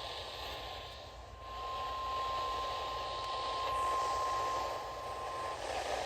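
NOAA Weather Radio warning alarm tone, a single steady 1050 Hz tone, received over a hissy radio signal. It gets louder about a second and a half in and cuts off shortly before the end, leaving only static. It signals that a warning message follows.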